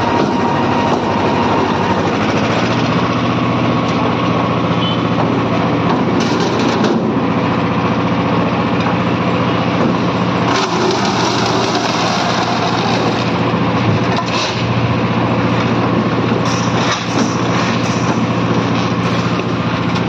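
Concrete mixer with lift hoist running steadily, its engine humming under load, with a few brief knocks from the work.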